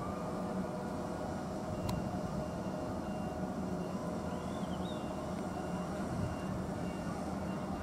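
Steady hum of a parked JR West 103 series electric train, its onboard auxiliary machinery running while it stands idle, with one sharp tick about two seconds in.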